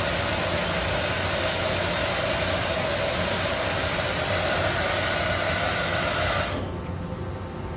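Steady machine noise, a loud hiss with a few high whining tones over it, that cuts off suddenly about six and a half seconds in, leaving a quieter hum.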